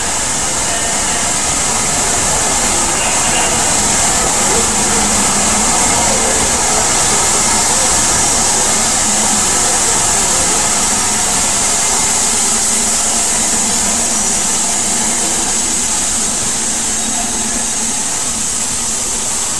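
Steam train arriving at a station: a steady, loud hiss of steam from the locomotive as the carriages draw in.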